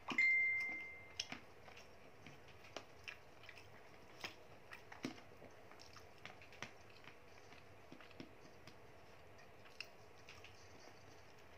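Wooden spoon stirring rice in a plastic food container: scattered soft clicks, taps and scrapes. Just after the start, one sharp clink with a ringing note that dies away over about a second, the loudest sound.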